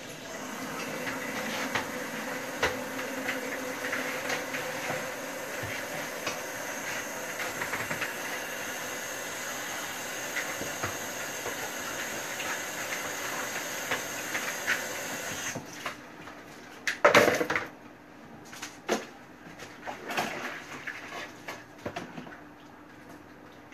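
Washing up: dishes and cutlery clinking against a steady rush of running water, which stops abruptly about two-thirds in, followed by one loud clatter and a few scattered knocks.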